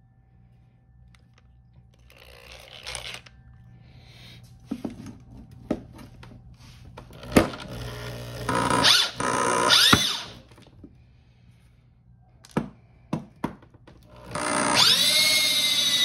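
Power drill turning a reamer stuck in a carburetor's throttle-shaft bore, amid clicks and knocks of metal tools. The drill runs in a loud burst around the middle, rising in pitch as it speeds up, then spins up again about a second before the end and runs steadily.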